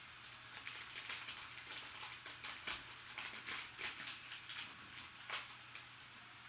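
Soft irregular crackling and clicking of a trading-card pack being handled and opened, with its wrapper rustling and cards shifting.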